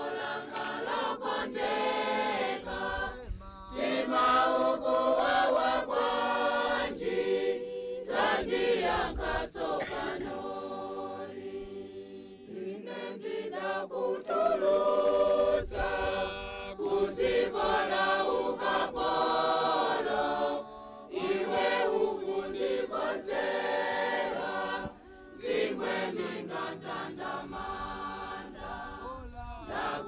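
A choir singing, phrases of held notes with brief pauses between them.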